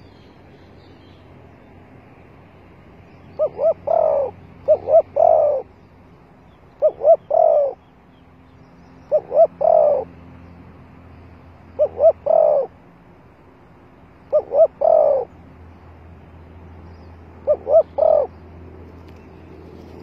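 Spotted dove cooing close by: seven phrases about two to three seconds apart, each two short notes followed by a longer one.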